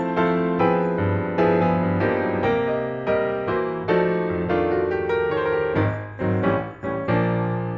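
Background piano music, with notes struck about twice a second and left to ring.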